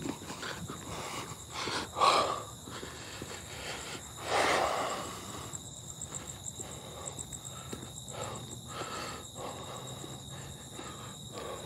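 Footsteps walking slowly over rough ground outdoors, about two steps a second. Two louder rushes of noise come about two seconds in and again about four and a half seconds in.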